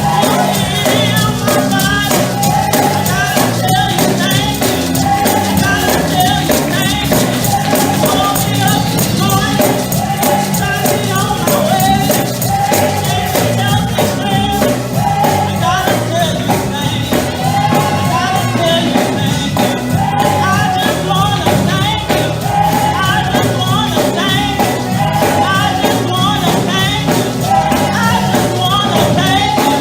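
Live gospel praise-and-worship music: voices singing together over a band, with a tambourine keeping a fast, steady beat.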